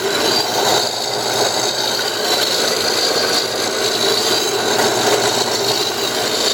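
7-inch by 12-inch horizontal metal band saw running steadily: its 1-horsepower, 115-volt motor and 4-speed belt drive turning the blade, with a steady rattling whir and a faint hum.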